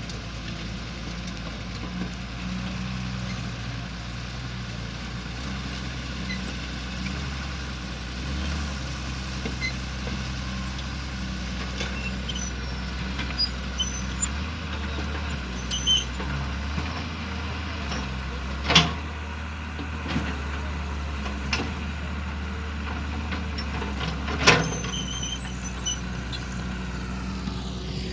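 Heavy diesel engine running steadily, its low pitch shifting for a stretch in the middle as it works. Two loud sharp knocks stand out in the second half.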